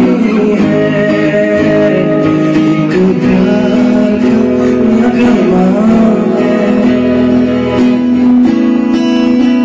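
A man singing a slow love song into a microphone, accompanied by an acoustic guitar played live.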